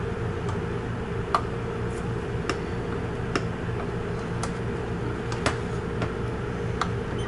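Light, irregular clicks as a small plastic-housed buzzer speaker is handled and pressed onto a circuit board, its pins being seated in the through-holes, over a steady low hum.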